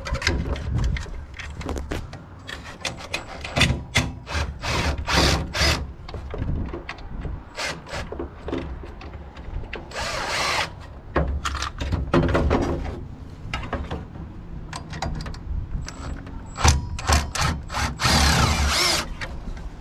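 A power drill/driver running in short bursts, backing out screws to remove a table saw's motor cover, with clicks and clatter of metal parts being handled in between. The two longest runs of the drill come about halfway through and near the end.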